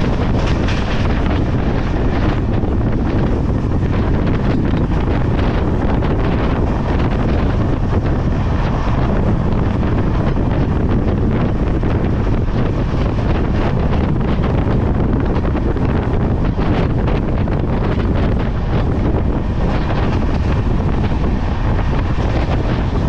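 Steady wind rush buffeting the microphone on a moving express train, over the even rumble of the coach running along the track.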